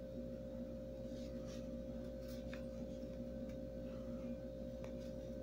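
A faint, steady pitched hum in the background, with a few faint small ticks as a crochet hook works yarn.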